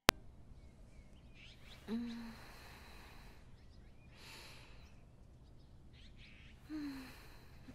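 Birds chirping softly in the background, with a woman's short sleepy murmur about two seconds in and another near the end.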